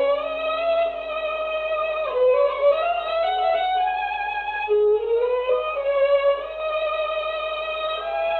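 Background music: a slow solo violin melody of long held notes, sliding up and down between pitches.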